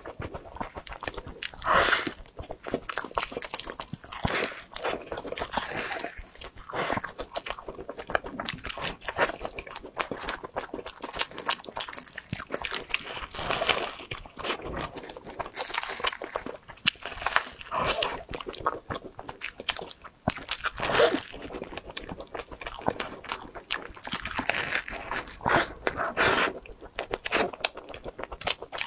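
Bites into a crisp-crusted cream puff, the pastry shell crunching and crackling, with chewing in between; irregular clicks and crackles throughout.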